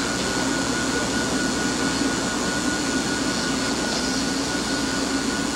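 Steady hiss with a low hum and a thin high whine underneath: the background noise of an old 1960s film soundtrack.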